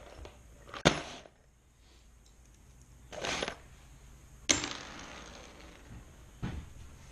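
Metal construction screws clinking and rattling as they are picked from a plastic tub. A few sharp knocks on the workbench, the loudest about a second in and about four and a half seconds in.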